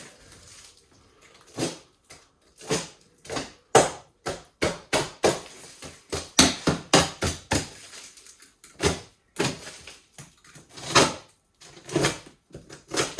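A cardboard box being cut and torn open by hand with a blade: a string of irregular short scrapes, rips and knocks with brief pauses between them.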